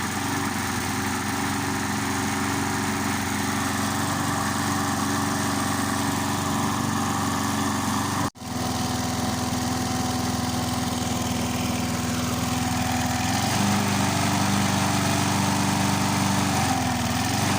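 Briggs & Stratton 3.75 hp single-cylinder four-stroke lawn mower engine running steadily while it warms up from a cold start. Its speed steps up slightly about three-quarters of the way through and dips briefly near the end, with a momentary break in the sound about halfway.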